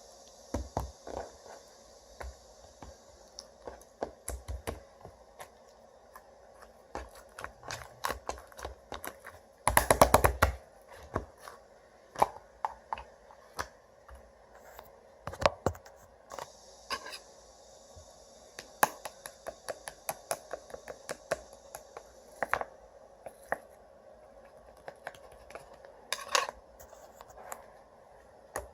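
Slime being squished and pressed by hand, making an irregular run of small sticky clicks and pops, with a louder crackling burst about ten seconds in.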